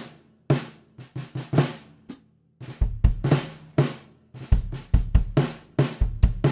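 Snare drum tuned very low, with a metal jingly bracelet lying on its head to shorten the ring, struck several times with sticks and giving short, dead hits. About two and a half seconds in, a bass drum joins and the hits become a simple beat.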